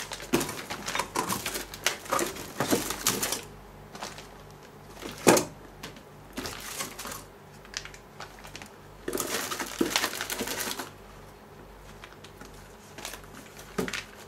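Plastic bags crinkling and a cardboard box rustling as wrapped car parts are handled and unpacked, in irregular bursts with a sharp knock about five seconds in.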